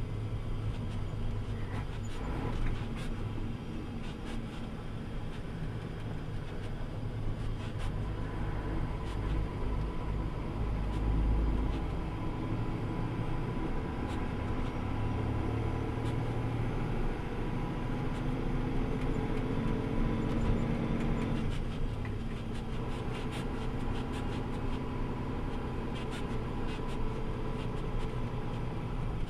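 Truck engine running steadily as the truck drives over a snow-packed road, heard from its hood, with tyre and road noise underneath. The engine note climbs for several seconds and drops suddenly about two-thirds of the way through, with a few faint clicks and knocks along the way.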